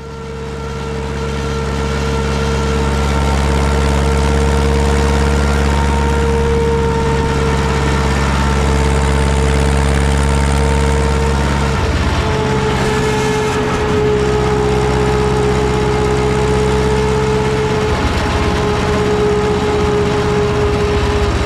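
Ursus C-360 tractor's four-cylinder diesel engine running at a steady speed, with a steady whine over the engine note. The low engine note shifts about halfway through.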